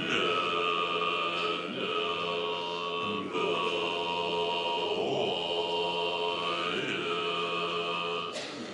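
Tibetan Buddhist ritual chanting with long held notes that break and glide about every one and a half to two seconds.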